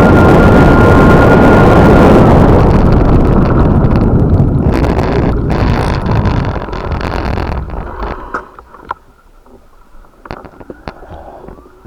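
Loud, steady rumble of a vehicle on the move, with a thin whine and wind on the microphone. It fades away over the first several seconds, and the rest is quiet apart from scattered clicks and knocks.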